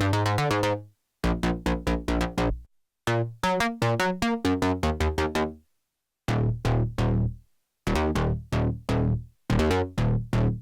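Arturia MiniFreak synthesizer playing a preset as a rhythmic sequence of short, plucked-sounding notes with a strong bass. The pattern stops briefly several times (about a second in, near three seconds, around six seconds and near eight seconds) and starts again.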